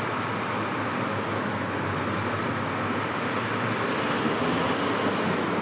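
Steady, even background noise of vehicle traffic, with no distinct events standing out.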